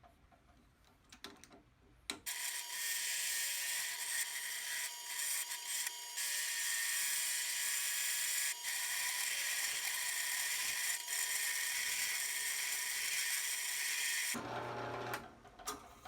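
A hand rasp scraping a wooden workpiece as it spins slowly in a drill press chuck: a steady, coarse rasping noise. It starts about two seconds in, breaks off briefly a few times, and stops about two seconds before the end.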